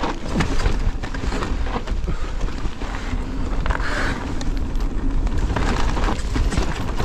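Electric mountain bike riding fast down a loose, dusty trail: wind rumbling on the microphone over the rush of tyres on dirt and gravel, with scattered knocks and rattles from the bike.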